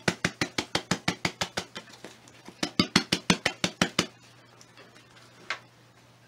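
Rapid, even tapping on a plastic plant pot, about six taps a second, with a short pause about two seconds in; the tapping stops about four seconds in, and one more knock follows near the end. The tapping settles fresh potting soil around a newly repotted dog tail cactus.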